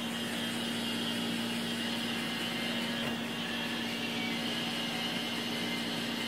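A steady mechanical hum with a hiss over it, unchanging in level.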